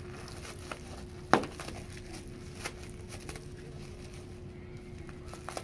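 Bubble wrap popping: a few sharp, irregular pops, the loudest about a second and a half in, over a steady low hum.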